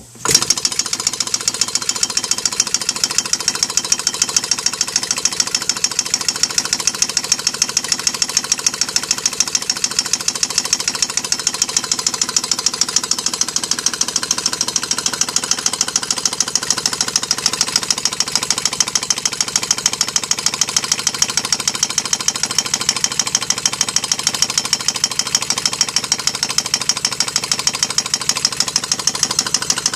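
Twin-cylinder compressed-air engine made from two string-trimmer engines, running on about 80 psi of shop air. It starts as its flywheel is spun by hand, then runs at a steady speed with a fast, even beat of exhaust-air puffs through the mufflers. There is a clatter that the builder puts down to imperfect machining.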